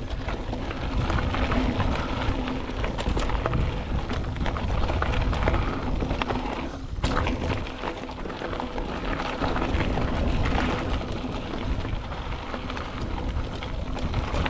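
Mountain bike rolling fast down dirt singletrack: tyre noise over dirt and rocks with rapid rattles and knocks as the bike hits bumps, over a heavy wind rumble on the microphone.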